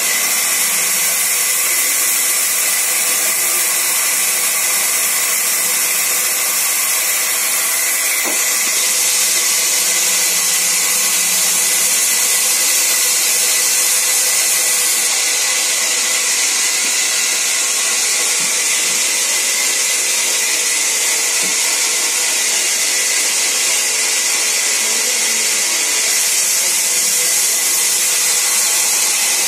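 Sawmill band saw running steadily and ripping a long thin plank, a loud high hiss over a steady whine, the hiss growing brighter about eight seconds in and again halfway through.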